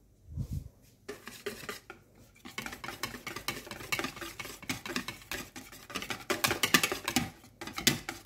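Wire balloon whisk beating thick pancake batter in a bowl, a fast run of clicks and scrapes as the wires knock and drag against the bowl's sides while red food colouring is mixed in. After a soft thump and a few light taps, the steady whisking starts about two and a half seconds in and grows louder towards the end.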